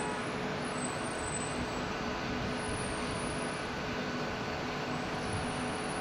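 A CRH1 electric multiple unit standing with its onboard equipment running: a steady rushing hum with a couple of faint steady tones under it.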